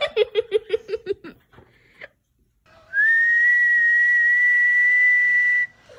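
A quick run of short laughing 'ha' sounds for about a second, then, after a pause, a long steady whistled note held for nearly three seconds, rising slightly as it starts.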